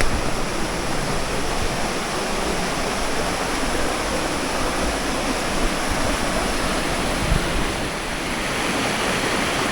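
Steady rushing of a fast-flowing hill stream over rocks, running high with a strong current.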